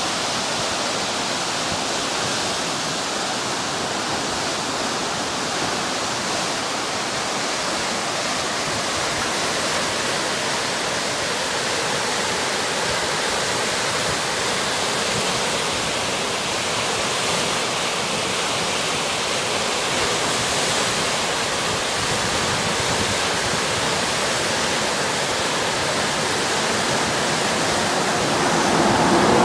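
Whitewater river rapids rushing steadily, the continuous noise of a large standing wave and churning white water, growing a little louder near the end.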